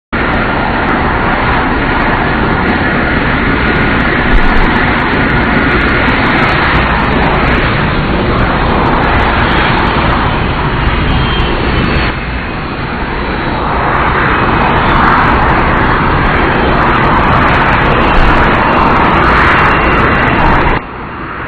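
Jet noise from the Shuttle Carrier Aircraft, a four-engine Boeing 747 with turbofan engines. A loud, steady rush that dips about twelve seconds in, swells again, and drops off suddenly near the end.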